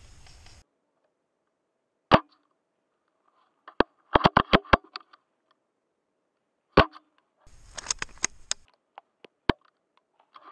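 Airsoft guns firing: a single sharp shot about two seconds in, then a quick run of about six shots. Another single sharp shot follows, then a few scattered shots.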